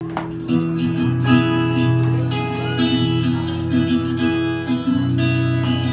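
Acoustic guitar strummed in a steady pattern, playing a song's instrumental intro.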